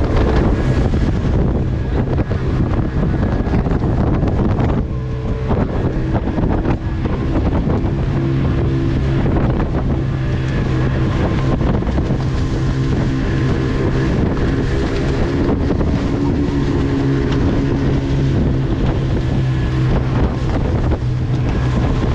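Small aluminium boat's motor running steadily at speed through choppy sea, with spray splashing off the hull and wind buffeting the microphone. The level dips briefly about five seconds in.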